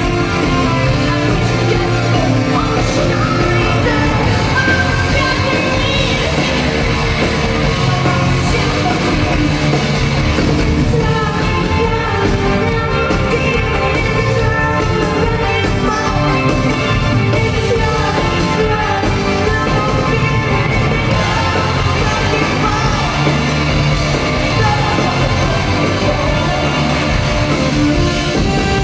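Live rock band playing loudly: electric guitar, bass, keyboards and drums under a lead singer, heard from within the audience.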